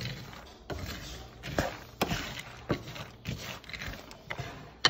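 Raw peanuts being stirred with a spoon in a pot of melted sugar syrup: irregular scraping and rattling, with sharp clicks and knocks about once a second as the nuts and the spoon hit the pan.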